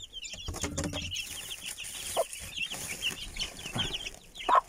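Young chicks peeping in a dense, rapid high chatter, with a hen's short clucks breaking in a few times, the loudest near the end.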